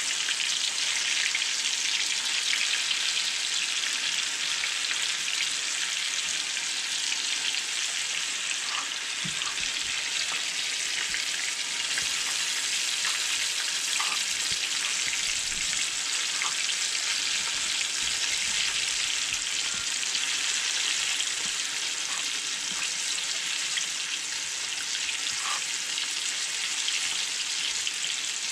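Flour-coated burbot chunks deep-frying in hot oil in a cast-iron skillet: a steady sizzle.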